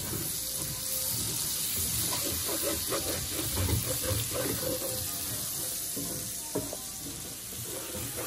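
Diced onions and garlic sizzling steadily in butter in a cast-iron skillet, with a wooden spatula scraping and stirring through them.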